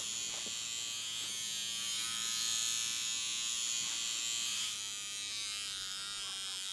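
Small handheld electric trimmer running with a steady buzz.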